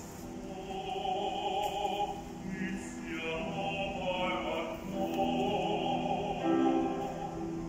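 Male opera singer singing long held notes with vibrato, accompanied on a grand piano.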